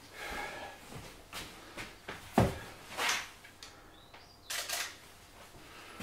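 A handful of short, sharp knocks and thumps from objects being handled, the loudest about two and a half seconds in, with quieter rustling and shuffling between them.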